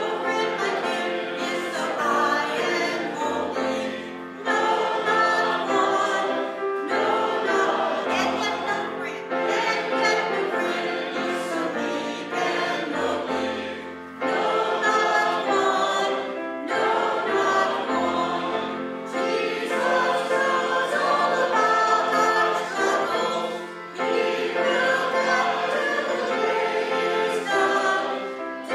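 Voices singing together in a church hymn, in phrases a few seconds long with short breaths between them.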